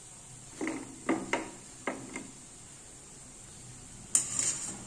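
Wire spider strainer knocking and clinking about five times as freshly fried methi muthiya are tipped onto tissue paper, then, about four seconds in, a brief noisy scrape and sizzle as the strainer goes back into the hot frying oil.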